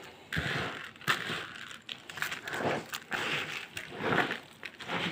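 A hand mixing raw rice with chopped herbs, onion and tomato paste in a bowl: repeated gritty swishes, one or two a second, as the stuffing for mumbar is worked together.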